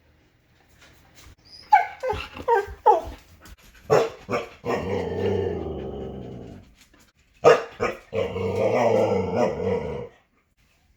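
Huskies 'talking': a run of short yips, a couple of sharp barks about four seconds in, then two long, rough, growly grumbles, each about two seconds long.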